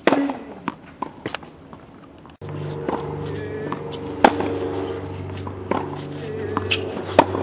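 A tennis racket strikes the ball with a sharp pop, followed by a couple of fainter knocks. About two and a half seconds in, music with a steady bass line cuts in abruptly, with two more sharp racket hits over it.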